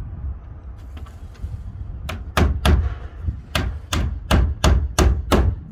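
Hammer nailing a timber capping strip onto the corner join of a wooden shed: about ten sharp blows starting about two seconds in, three quick ones, a short pause, then six or seven more at a steady pace.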